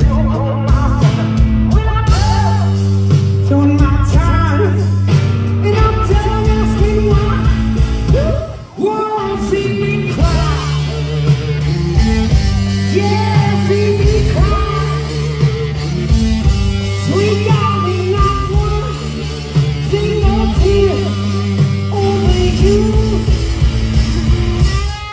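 Rock band playing a blues-rock cover with singing over a steady low bass line and drums, with a brief break in the music about a third of the way through.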